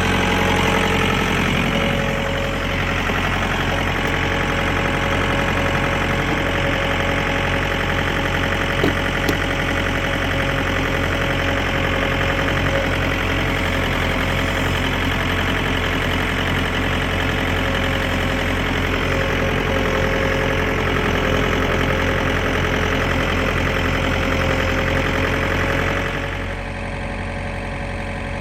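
An engine idling steadily, with an even low drone. A little before the end the higher part of the sound falls away and it gets slightly quieter.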